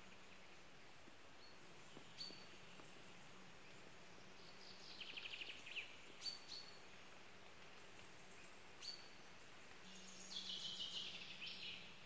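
Faint, high-pitched small-bird calls: a few single short chips, and two quick twittering runs of rapid notes, one about five seconds in and one near the end.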